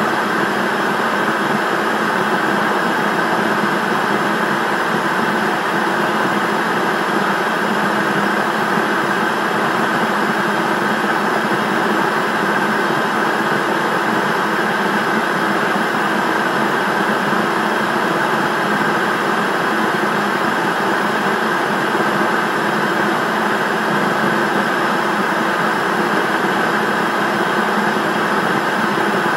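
Television static: a steady, unchanging hiss of an untuned TV.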